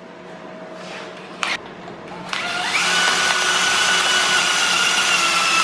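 Cordless drill speeding up with a rising whine about two seconds in, then running steadily as its bit bores out an airsoft gun's metal barrel to widen it. A single sharp click comes shortly before the drill starts.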